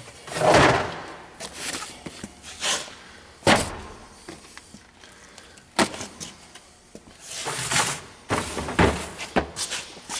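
Tools being handled and put away in a metal toolbox: a series of separate knocks and clunks, the loudest about half a second in and again around three and a half seconds, with a quicker run of clatters near the end.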